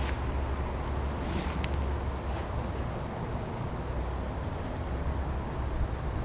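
Insects trilling steadily at a high pitch over a steady low rumble, with a few brief rustles of leaves in the first couple of seconds.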